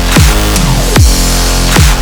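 Electronic dance music with a heavy beat: repeated deep kick drums that drop sharply in pitch, over a dense sustained backing.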